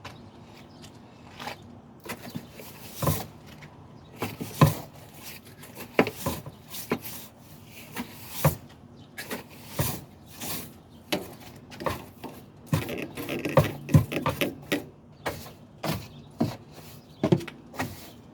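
Irregular clicks and knocks, about one or two a second, from hands and a tool working at the clip and ball-socket end of a van lift-gate strut to free it.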